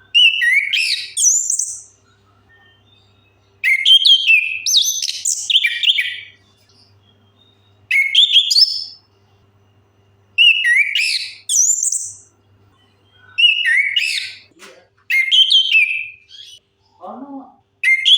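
Chestnut-capped thrush (anis kembang) singing: loud, varied whistled phrases with quick up-and-down glides, each a second or two long, repeated every two to three seconds. A few lower-pitched notes come in near the end.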